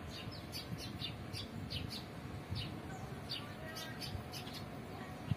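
Small birds chirping: short, high notes that each drop in pitch, repeated irregularly several times a second, over a low background rumble.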